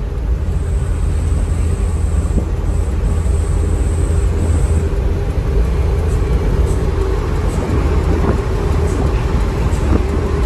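Steady low engine drone and road noise heard inside a bus cab cruising on a highway, with a faint high whine through part of it.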